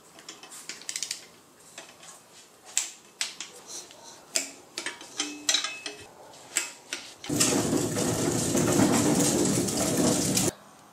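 Hand tools clicking and clinking on metal as bolts are fitted and tightened on an engine's oil pump and windage tray. About seven seconds in, a loud steady rushing noise starts abruptly and cuts off about three seconds later.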